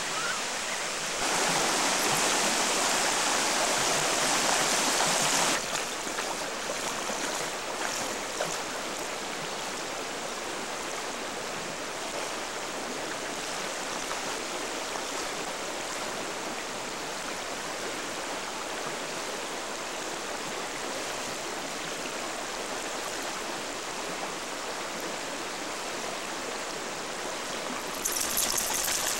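Steady rush of river rapids, louder for a few seconds near the start. Near the end, splashing as a husky wades through the shallow water.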